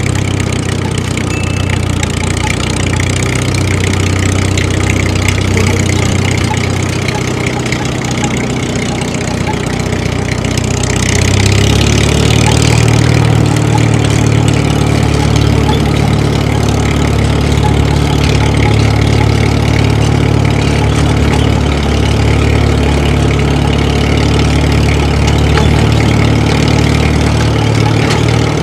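Tractor engine running steadily at idle, getting a little louder about twelve seconds in.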